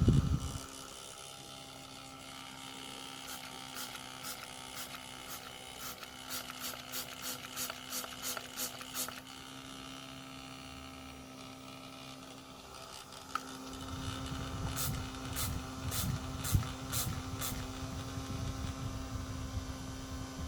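Small battery-powered handheld fan running with a steady motor hum. Its water-spray trigger is squeezed in quick spritzes, about three a second, for several seconds, then in a second short series later on. A low rumble joins in the second half.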